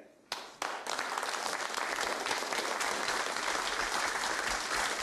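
A roomful of seated diners applauding: the clapping starts suddenly a moment in and keeps on steadily.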